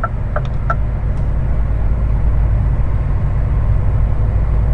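Steady low drone of a heavy truck's diesel engine and road noise heard from inside the cab, with a few light clicks in the first second.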